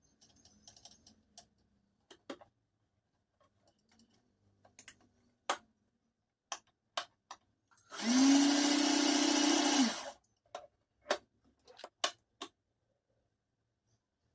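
Usha Allure electric sewing machine running for about two seconds: the motor spins up to a steady hum, stitches, and winds down. Scattered clicks and taps come before and after.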